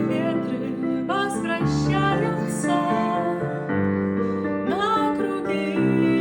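A song with a woman singing over piano accompaniment.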